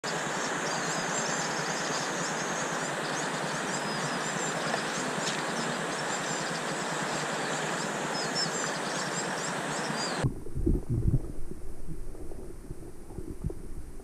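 Shallow mountain stream running over a rocky bed, a steady rush of water with small high chirps above it. About ten seconds in, the sound suddenly turns muffled, with low rumbles and knocks, as the microphone goes under the water.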